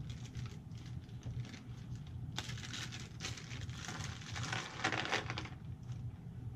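Plastic packaging crinkling and rustling as it is handled, in irregular bursts that are loudest from about two and a half to five and a half seconds in, over a low steady hum.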